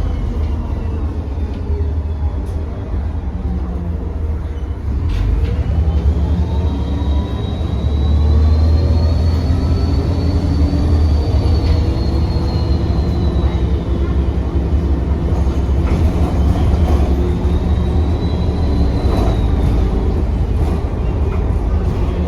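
Bus diesel engine pulling hard with a loud turbo whistle, heard from inside the bus. The whistle rises in pitch about six seconds in, holds, then fades as the engine eases off, and rises again more briefly near the end.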